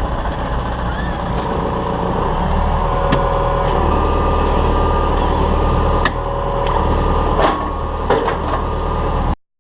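Farm tractor diesel engine running steadily. Its low drone strengthens about two seconds in, a thin high whine joins partway through, and a few clunks come over it before the sound cuts off abruptly just before the end.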